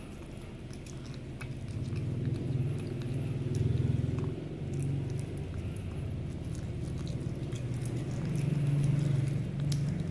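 Cat chewing and biting raw chicken, with scattered wet clicks and smacks. A low rumble runs underneath, swelling twice.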